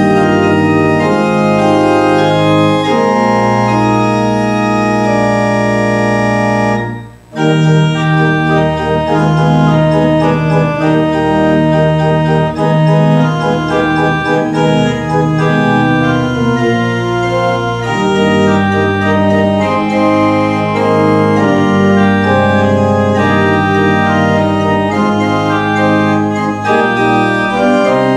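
Church pipe organ playing a postlude in sustained chords that move every second or so, with a brief break about seven seconds in before the music resumes.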